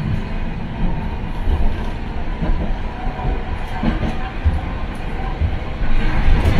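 Hiroshima Electric Railway 700-series tram running along street track, heard from inside the car: a steady low rumble of wheels and running gear with a few knocks from the rails.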